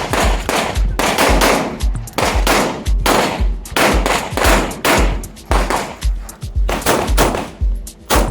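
Music with a heavy, steady beat, about two beats a second.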